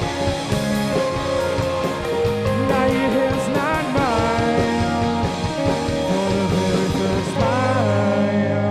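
Indie rock band playing an instrumental passage: electric guitar with bent notes over bass guitar and a drum kit.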